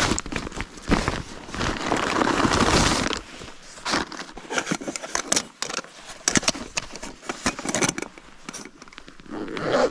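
Camping gear being pulled out of a backpack: fabric rustling and a paper bag crinkling, loudest about two seconds in, then a run of small clicks and knocks as a cook pot and a gas canister are handled and set out.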